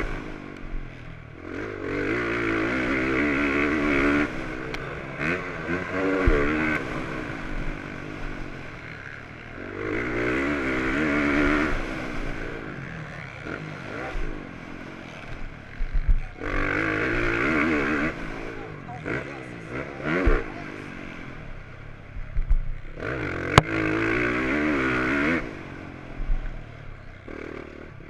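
Motocross bike engine heard close on the bike, revving hard in four stretches of a couple of seconds each with its pitch wavering up and down, and easing off between them as the throttle is rolled on and off around the track. Scattered knocks and clatter from the bike over the dirt come between.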